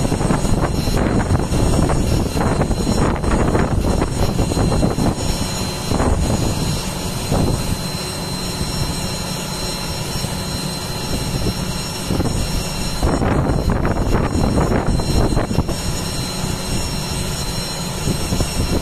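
Jet aircraft engine noise: a steady rumble with several high, steady whine tones over it, easing somewhat in the middle and rising again about thirteen seconds in.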